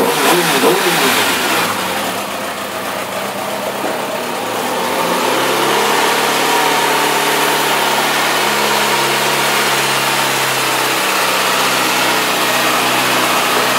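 2009 Kawasaki ZX-6R's 599 cc inline-four engine running: the throttle is blipped up and down quickly in the first second or two, then it settles into a steady idle that picks up slightly about five seconds in.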